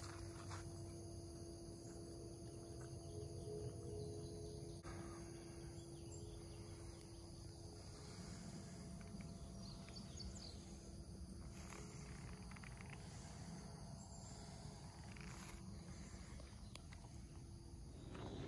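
Faint outdoor woodland background: a steady insect drone with a low rumble underneath, and no distinct event.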